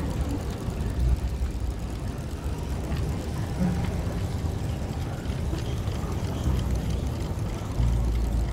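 Low rumbling drone from amplified violin and live electronics in an experimental improvisation, with a few short held low notes, swelling louder near the end.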